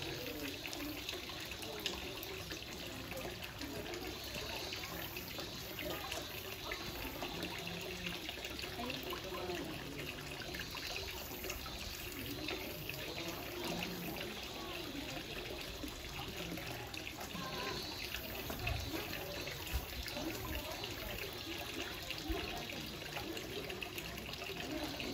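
Water running and trickling steadily.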